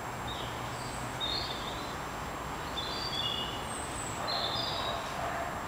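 Birds giving short, high chirps every second or so over a steady hiss of outdoor background noise.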